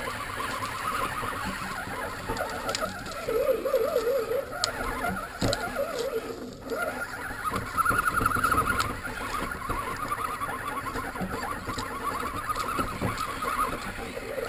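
Electric motor and gear drivetrain of an Axial 1/10-scale RC crawler whining, its pitch wavering up and down with the throttle, as the truck churns through shallow water with splashing.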